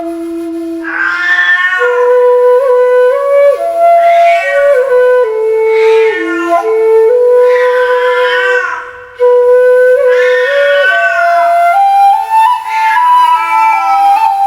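Japanese bamboo flute (takebue) playing a slow melody of held notes, while a cat meows over it about six times, roughly every two seconds.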